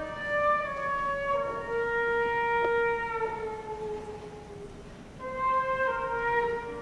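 A concert wind band playing sustained, slowly shifting chords, with flutes and woodwinds prominent. The sound fades about four seconds in and swells again just after five seconds.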